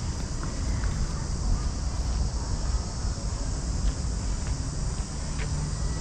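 Wind rumbling on the microphone, with a steady high drone of insects from the trees behind it.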